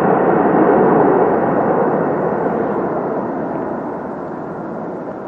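Engine noise of a twin-engine wide-body jet airliner rolling out on the runway after landing. It is a broad, steady rush that fades gradually as the aircraft moves away.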